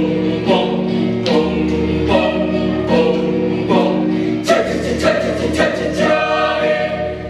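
A group of voices singing a janger song in chorus over music. New notes come on a steady beat, a little faster than one a second.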